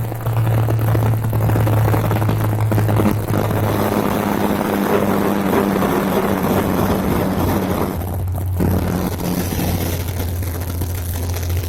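Helicopter engine and rotor running with a loud, steady low drone and rushing noise. It dips briefly about eight seconds in, then carries on at a slightly lower pitch.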